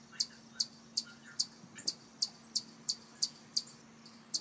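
Eastern chipmunk giving its repeated chip call: short, high-pitched chirps at a steady pace of about two and a half a second.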